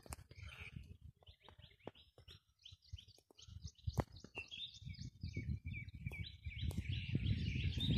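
Birds chirping in many short, quick notes, thickening in the second half, over a low fluctuating rumble, with a few sharp clicks.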